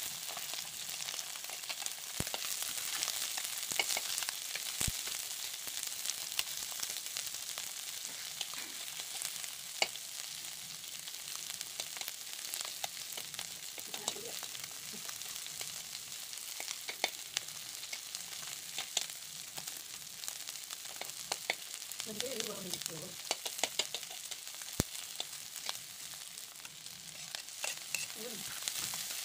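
Fish and sliced onions frying in hot oil in a wok: a steady sizzle, with a metal spatula clicking and scraping against the pan as they are stirred.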